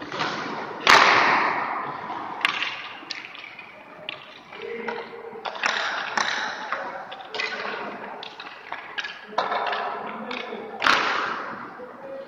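Ice-hockey practice sounds: two sharp, echoing cracks of pucks being shot or striking, about a second in and again near the end, with repeated short scrapes of skate blades on the ice in between.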